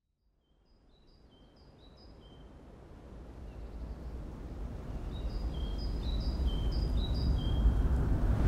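Outdoor ambient noise swelling steadily louder from silence, with a deep rumble underneath. Over it a bird sings a phrase of quick, high chirps, once about a second in and again about five seconds in.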